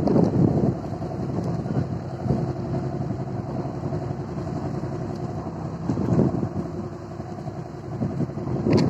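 Steady hum of a running engine, with wind buffeting the microphone in gusts, strongest around six seconds in and near the end.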